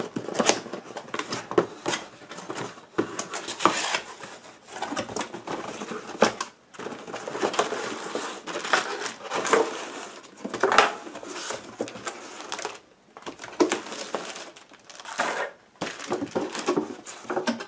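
Cardboard box opened and unpacked by hand: an irregular run of cardboard flaps scraping, folding and knocking, with plastic packaging rustling as the contents are lifted out.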